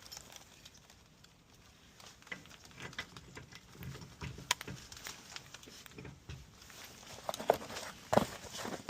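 Scattered light clicks and knocks, sparse at first with one sharp click about halfway, growing busier near the end.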